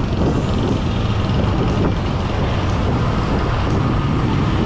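Steady road traffic noise, with the engines of passing trucks and other vehicles, heard from a bicycle riding in town traffic.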